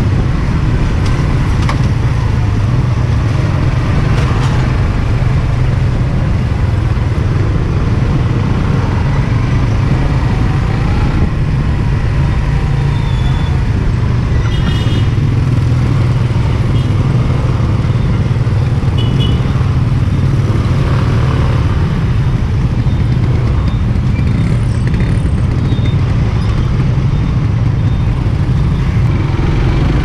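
Onboard riding sound of a Suzuki GSX-R150's small single-cylinder engine moving through dense scooter and car traffic, a steady low rumble mixed with the surrounding traffic noise.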